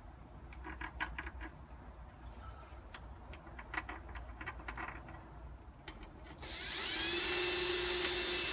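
Light clicks and knocks of parts being handled, then about six seconds in a power drill spins up with a rising whine, runs steadily for about two seconds and stops.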